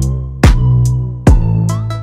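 Background music with a hip-hop style beat: deep bass drum hits with a held bass, twice, under sharper drum hits.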